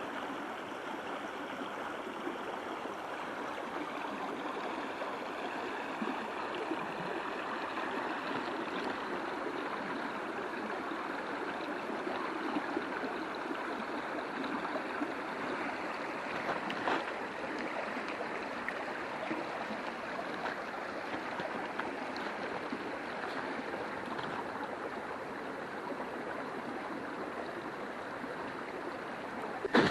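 Water running steadily down a largely frozen waterfall, flowing under the ice: a constant, even rush.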